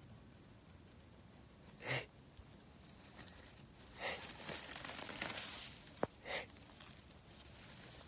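Short breathy huffs close by, one about two seconds in and two more later, with a rustle of dry leaves and grass in between and a single sharp click just before the last huff.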